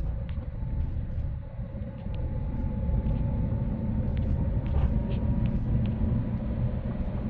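Steady low rumble of a car's engine and tyres heard from inside the cabin while driving, with a faint steady whine and a few scattered light ticks.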